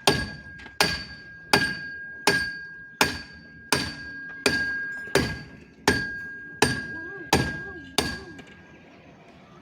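Hammer blows at a steady pace, about twelve strikes roughly three-quarters of a second apart, each with a sharp metallic ring that carries on between blows. The blows stop about eight seconds in.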